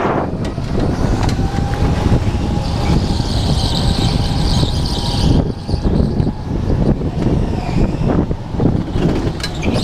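Go-kart driven at speed, heard from on board: its motor running steadily under the rush of air and tyre noise, with a faint steady whine through the first half.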